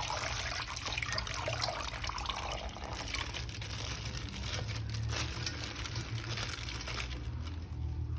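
Water running steadily, as from a tap, while toys are rinsed.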